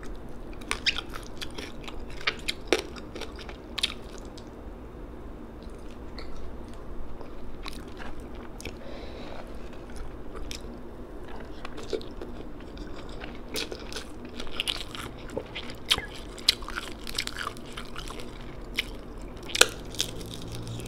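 A person eating rice and fish by hand: chewing and mouth sounds with frequent short, sharp clicks, the loudest near the end.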